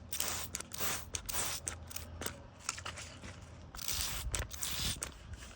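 Soapy water being applied around a plug in a leaking motorcycle tire: a quick, irregular series of short scratchy, hissing noises.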